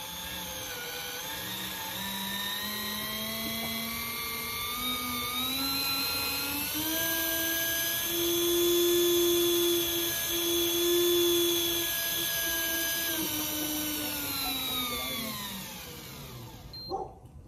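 Daiwa Tanacom 1000 electric fishing reel's motor whining as it winds in line under the heavy load of towing a person on a scooter. The whine rises in pitch over the first several seconds, holds high and steady in the middle, then falls away and stops about a second before the end.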